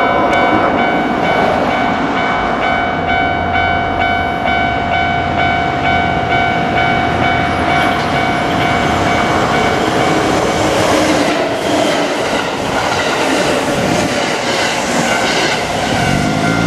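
Japanese level-crossing warning bell ringing in a fast repeating pattern while a Kintetsu Osaka Line train passes, its wheels clattering over the rail joints. The bell stops a little over halfway through and the wheel clatter goes on.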